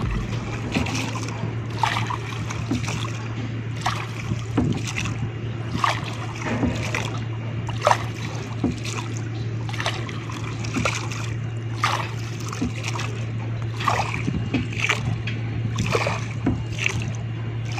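Bamboo-shafted oar of a wooden rowboat dipping and pulling through river water, splashing and sloshing about once a second. A steady low hum runs underneath.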